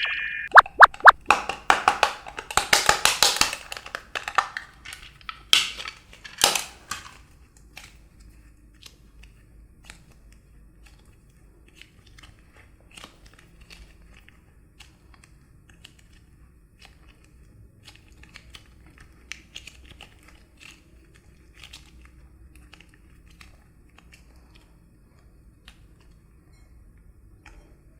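Slime being handled and squeezed: a run of sharp pops and dense sticky crackling over the first several seconds, then only faint scattered crackles.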